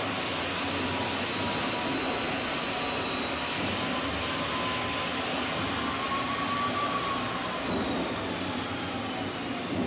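Steady hiss and hum of an old half-inch Portapak videotape recording, with a faint thin whine that wavers slightly in pitch, rising a little past the middle and sliding down again near the end.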